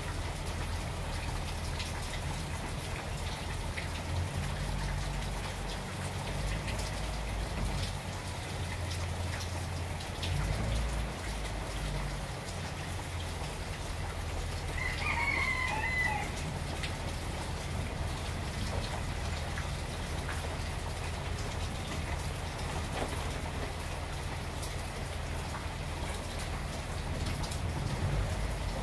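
Steady rain, with a chicken giving one brief call about halfway through.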